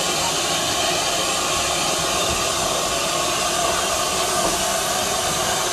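Steam tank locomotive in steam, letting off a loud, steady hiss of escaping steam.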